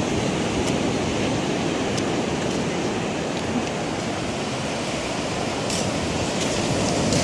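Sea surf breaking and washing on a beach: a steady rushing noise.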